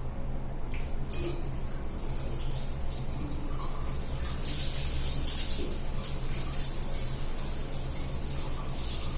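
Tap water running and splashing as hair is rinsed directly under the tap. The water starts about a second in, and a steady low hum runs underneath.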